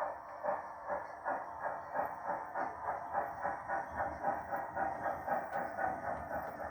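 Digital sound decoder in a 7mm-scale GWR steam railmotor model, playing steam exhaust chuffs through the model's small loudspeaker: a steady run of beats about three a second, as the railmotor runs under way.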